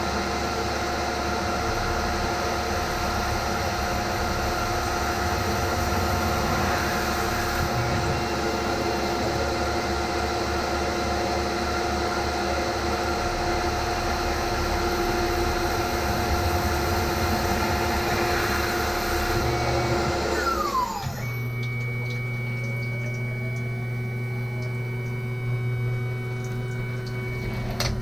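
Tormach CNC mill slotting steel: a steady spindle tone with several fixed pitches over a dense hiss of cutting. About twenty seconds in the spindle winds down with a falling whine, leaving the machine's quieter steady hum.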